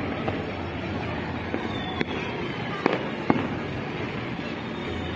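Distant fireworks and firecrackers going off over a city: scattered sharp bangs, three clearest between about two and three and a half seconds in, over a steady background hum.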